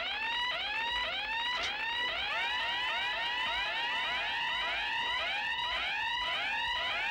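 Radiation contamination monitor alarm at a plutonium plant, sounding a rapidly repeating electronic whoop, each note rising in pitch, about two or more a second. The whoops overlap more densely from about two seconds in. It is the sign that a worker has been found contaminated.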